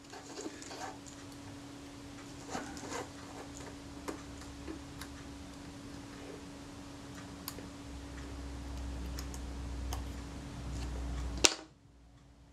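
Faint, scattered clicks and ticks of steel tweezers against small metal camera parts as a displaced ratchet pawl is set back in place. A steady low hum runs underneath and cuts off suddenly with a sharper click near the end.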